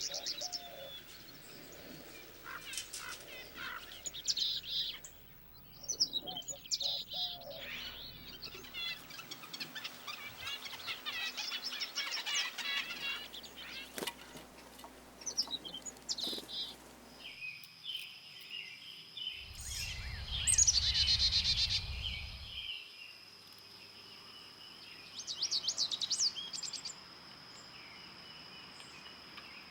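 Small songbirds chirping and trilling in quick calls throughout. About two-thirds of the way through, a low rumble lasting about three seconds, the loudest sound, coincides with a burst of trilling, and a faint steady high whine runs from a little past the middle.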